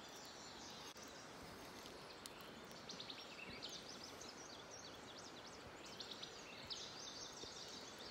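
Faint outdoor ambience: a small bird singing short runs of quick high chirps, over a steady low hiss.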